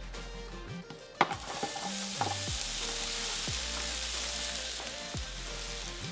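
A steady sizzling hiss, like food frying, that starts suddenly with a click about a second in, over light background music.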